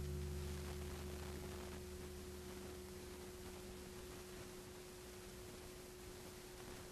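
Hung rusty iron plates ringing out after being struck: a cluster of low tones fades away over the first few seconds, leaving a single higher steady tone hanging on.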